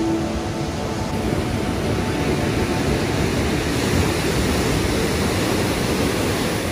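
Rough sea surf: waves breaking and foaming at the shoreline, a steady rushing noise.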